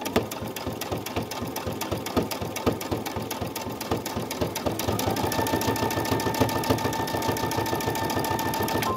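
Brother Innov-is V5 sewing machine stitching through fabric, a fast even run of needle strokes. About halfway through a steady whine joins in and it grows slightly louder, then it stops suddenly at the end.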